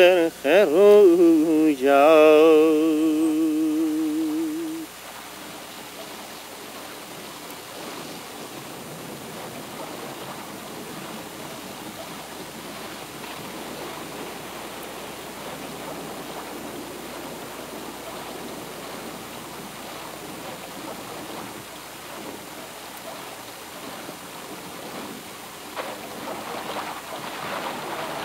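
A voice sings a final long, wavering note that stops about five seconds in. Then steady flowing water, growing a little louder near the end.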